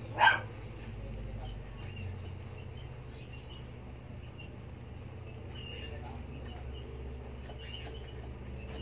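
Crickets chirping in a steady, evenly pulsing high trill, with one short, loud kitten mew about a quarter of a second in.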